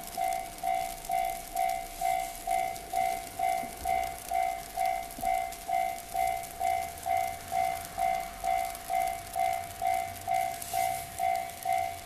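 Japanese railway level-crossing alarm ringing: an electronic 'kan-kan' ding repeating steadily about twice a second, the warning that a train is approaching the crossing.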